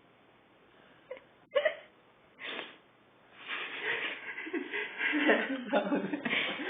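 Dogue de Bordeaux puppy waking from sleep: a few short, sudden snorts, then a run of louder snuffling breaths that builds toward the end.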